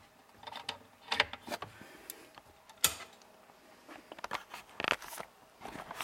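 Scattered clicks and knocks of a power plug and cord being handled and plugged into a variac. The sharpest click comes about three seconds in.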